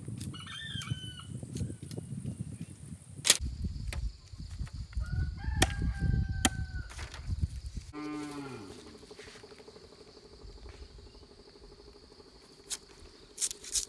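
Fresh bamboo being cut and split into strips with a curved knife: rustling and scraping with sharp cracks of the blade, while fowl call briefly twice in the background. About halfway through, the sound drops to quieter knife shaving on a single strip, with a few light clicks.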